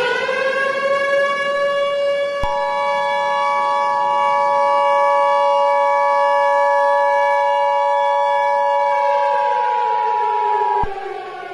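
A siren winds up in pitch, holds steady, and winds down near the end. About two seconds in, the two-tone Emergency Alert System attention signal starts on top of it and cuts off sharply near the end, announcing an emergency alert broadcast.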